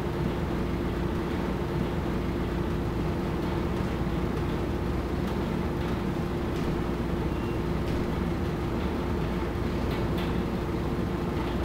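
Steady mechanical hum and low rumble holding one constant tone, with a few faint taps in the second half.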